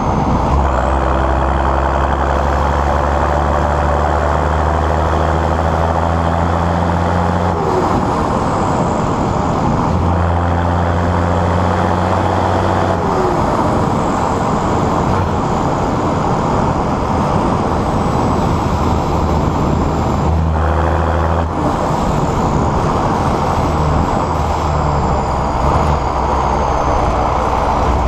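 John Deere 6910S tractor's six-cylinder diesel engine running loud and steady, its note and load changing several times. A thin high whistle slowly falls in pitch over it.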